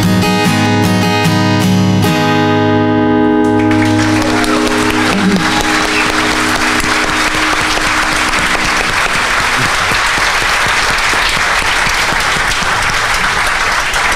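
Acoustic guitar strumming the closing chords of a song, the last chord left ringing. Audience applause starts about three and a half seconds in and carries on.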